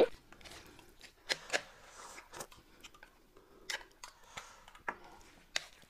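Quiet eating sounds: scattered short clicks of a utensil against a plate and soft chewing.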